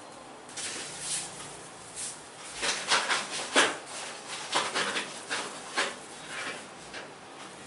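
Hands working on a person's head during a massage: an irregular run of sharp slaps and clicks mixed with rubbing strokes, loudest about halfway through.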